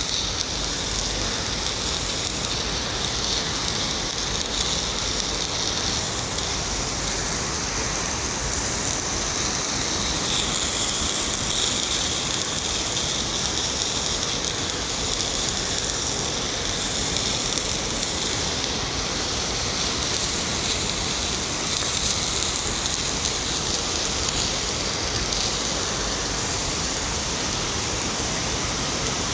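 Stick (SMAW) welding arc burning on a carbon steel pipe joint: a dense, even crackle that runs without a break as the electrode is fed along the root.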